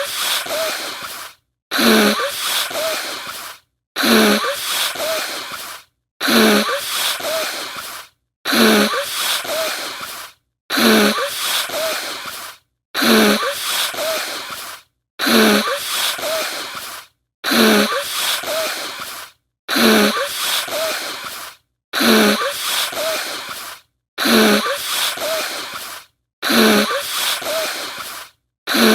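A stock sound effect played on a loop, repeating about every two seconds. Each repeat is a breathy hiss with a rising, voice-like glide that starts sharply, fades and then cuts off to silence.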